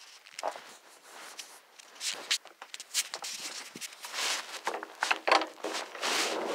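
Irregular rustling and scuffing with scattered sharp clicks as a phone is handled and moved close against fabric. A denser, rougher rustle starts about six seconds in.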